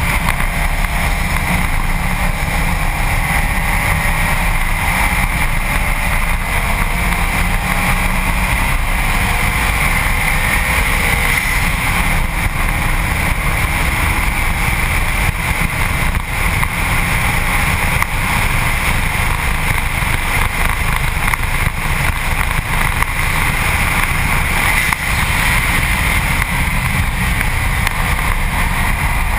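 Steady wind rush over a front-bumper camera's microphone and tyre noise from a Subaru WRX STi at track speed. Beneath it, the car's turbocharged flat-four engine is faintly heard, its pitch drifting up and down.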